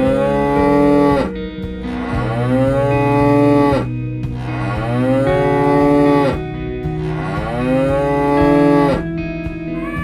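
Cattle mooing: four long calls, each about two seconds, rising then falling in pitch, over background guitar music.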